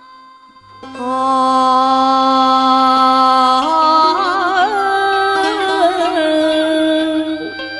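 A woman's voice begins the melisma of a Southern Vietnamese hò folk song about a second in, holding one long note, then bending it in wavering ornaments and stepping up in pitch about halfway through, over a faint steady low drone from the traditional ensemble.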